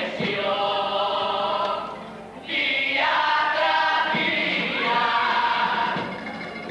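Cádiz carnival comparsa, a youth choir, singing held notes together to Spanish guitar accompaniment. The voices break off briefly about two seconds in and come back loudly.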